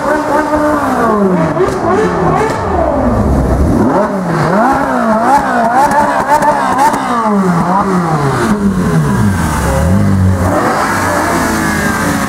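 Ferrari 458's V8 engine revved again and again in quick blips, its pitch rising and falling with each one. Near the end it drops back to a steady idle.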